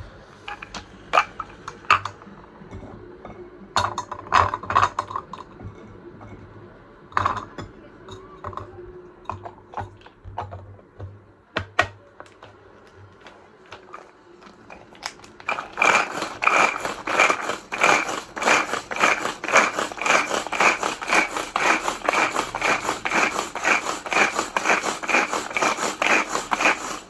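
Pull-cord manual mini chopper chopping garlic: scattered clicks and clatter as it is handled, then, from about halfway through, the cord pulled again and again in quick even succession, each pull a short whirring rattle of the spinning blades. The cord pulls freely, with nothing to stop it.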